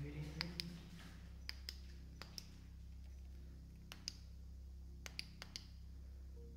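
A series of sharp, light clicks, mostly in pairs a fraction of a second apart, every second or so, over a low steady hum.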